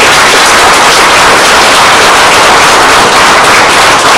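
Audience applauding: loud, dense clapping that fills the room.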